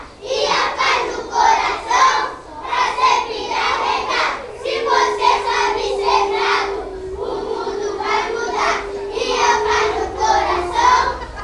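A group of young children singing and chanting together in short repeated phrases.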